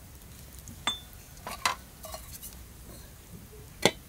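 Aluminium cookware clinking: a few light knocks, then a louder metallic clank with a short ring near the end as an upturned aluminium bowl is set on the pot as a lid.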